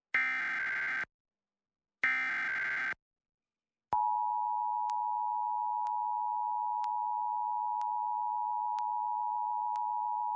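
Emergency Alert System header: short bursts of raspy digital data tones, about a second each with a second's gap between them, twice. Then, from about four seconds in, the steady two-tone EAS attention signal, with faint clicks about once a second.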